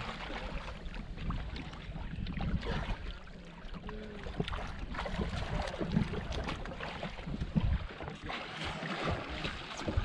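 Water splashing and sloshing in uneven strokes, with wind buffeting the microphone in low thumps.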